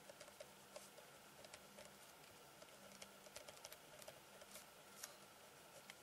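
Ballpoint pen writing on paper, heard faintly: irregular light ticks and scratches as the pen strokes and lifts, several a second.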